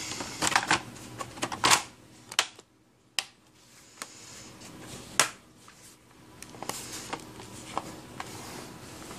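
Scattered plastic clicks and taps of a Lenovo P500 laptop being handled and reassembled: a quick run of clicks at first, then single knocks a second or so apart.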